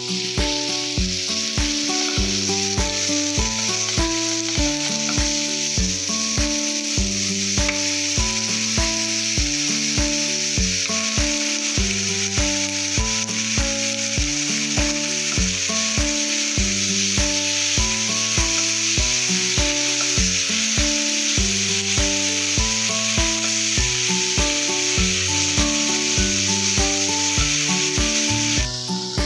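Shredded cabbage and diced vegetables sizzling as they stir-fry in a wok, with the hiss stopping just before the end. Background music with a steady beat plays throughout.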